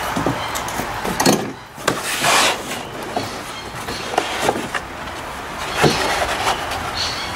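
Cardboard box and molded paper-pulp packaging being handled: several short scrapes, rustles and light knocks as the pulp insert is worked loose and lifted out of the box.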